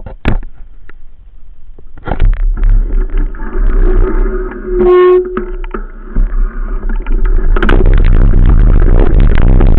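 Enduro motorcycle engine running, picked up through a handlebar-mounted action camera, with a short horn beep about five seconds in. From nearly eight seconds a loud, constant rumble takes over.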